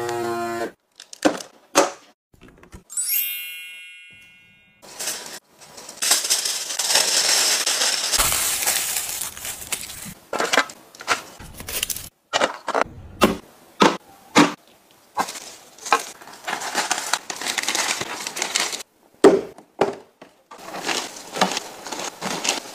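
A vacuum sealer's pump hums and cuts off just after the start, and a chime rings with a decaying tone about three seconds in. Then comes a long stretch of crinkling aluminium foil, followed by rustling plastic bags and short clicks and taps of plastic containers.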